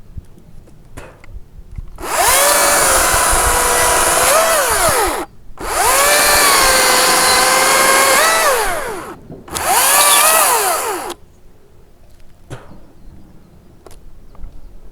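Makita 40V top-handle battery chainsaw running in three bursts, two of several seconds and a short last one, cutting dead branches. Its motor whine sags in pitch and holds while the chain is in the wood, rises briefly as each cut finishes, then winds down.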